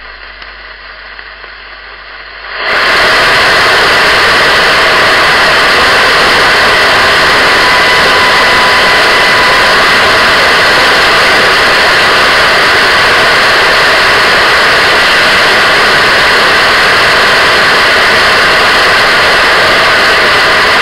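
Untuned radio static: a quieter, muffled hiss for the first couple of seconds, then it jumps to loud, steady static with faint whistling tones in it.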